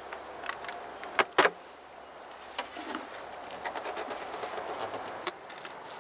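Beehive covers knocking and scraping as they are lifted off the hive: two sharp knocks about a second in, then lighter clicks near the end as the inner cover is pried up.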